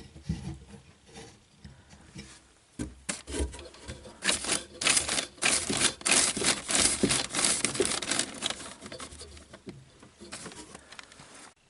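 Rubbing, rustling and light knocks of hands working under a sink to shut off the water supply, busiest in the middle of the stretch.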